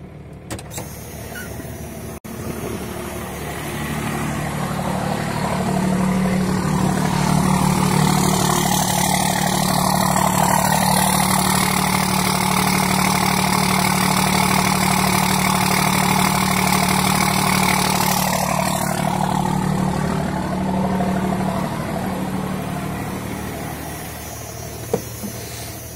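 A 1993 Dodge 12-valve Cummins 5.9 L inline-six diesel with a VE injection pump idles steadily just after a cold start, with its temperature gauge still at the bottom. It grows louder over the first several seconds, holds loudest through the middle, then eases back toward the end.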